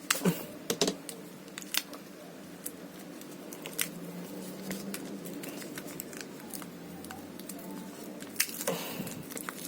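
Scissors snipping and plastic packaging being handled as a box is opened: scattered sharp snips and clicks, busier near the end.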